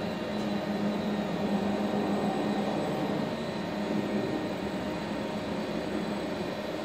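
Fanuc S420iF industrial robot arm moving through a test program: its servo motors and gear reducers give a steady mechanical hum with a low whine that swells and fades as the arm moves. The robot is running normally on its repaired power supply.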